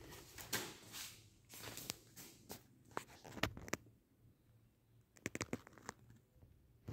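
Footsteps and scuffing on a hard floor with rustles and sharp clicks, a quick run of clicks about five seconds in, over a faint low hum.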